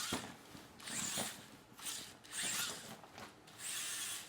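Air Hogs Super Soft Stunt Shot remote-control car's small electric drive motors and gears whirring in short bursts, starting and stopping several times as it is driven.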